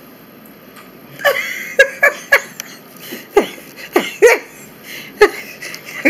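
A person laughing in short, sharp bursts spaced about half a second to a second apart, starting about a second in.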